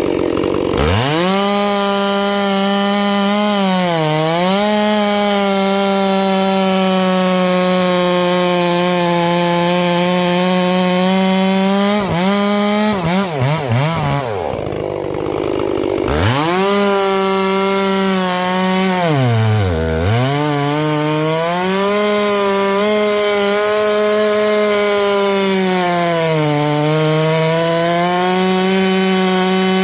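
A 70cc-class two-stroke chainsaw run at full throttle, cutting through a log. Its pitch sags briefly several times as the chain bites, and partway through the cut stops for a few seconds with quick throttle blips before it resumes.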